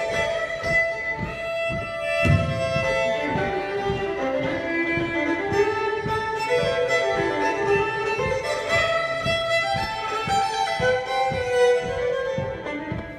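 Solo fiddle playing a traditional dance tune in quick running notes, with a steady beat of low taps under it.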